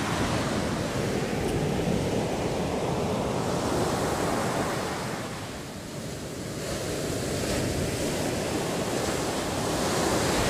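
Ocean surf washing onto a beach: a steady rush that eases about six seconds in and then builds again, with wind buffeting the microphone.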